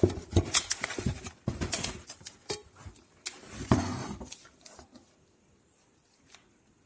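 Handling noise from shrink-wrapped opal glass dinner plates being lifted out of a thermocol foam tray in a cardboard box: crinkling plastic wrap, scraping on the foam and a series of clicks and light knocks, dying away after about four and a half seconds.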